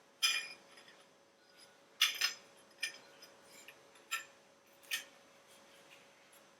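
Carriage lamp glass panels and metal parts clinking lightly as they are handled on the bench: about six short, sharp clinks at uneven intervals, the loudest near the start and about two seconds in.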